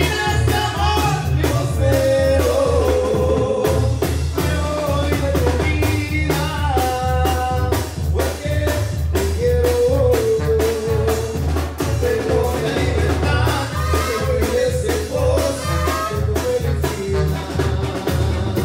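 Loud Latin dance music with a steady beat, heavy bass and singing.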